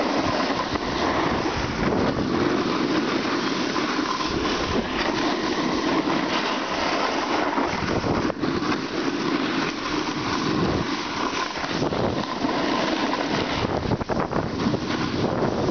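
Wind rushing over the microphone and a snowboard scraping over packed snow during a downhill run, a steady loud rush, with a few knocks about fourteen seconds in.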